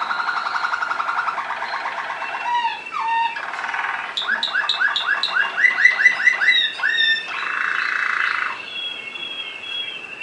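Waterslager (Malinois) canary singing: fast rolling trills give way to a quick series of rising notes, about three a second, over a high held note, with a short buzzing rattle about seven seconds in.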